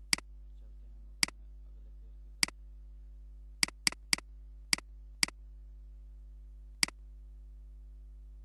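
Computer mouse button clicking nine times at irregular intervals, each click followed by a softer release tick, with three quick clicks in a row near the middle. A steady low hum runs underneath.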